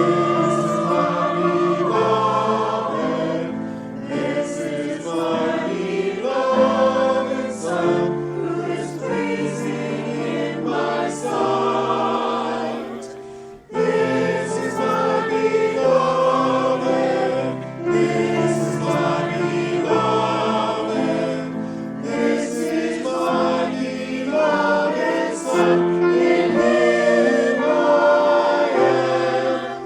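A choir singing a hymn, with sustained sung phrases and one brief break about halfway through.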